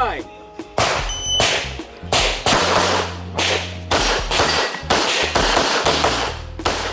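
CZ Shadow 2 9mm pistol fired in a rapid string of about a dozen shots, a few followed by the ring of hit steel plates, with background music underneath.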